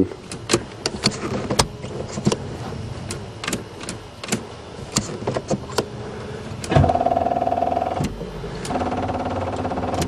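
Scattered clicks of the ignition key being handled and turned in a Buick Regal. Then the car gives a rapid buzzing chatter for about a second, stops briefly, and buzzes again more quietly, without cranking, because the newly installed battery is dead.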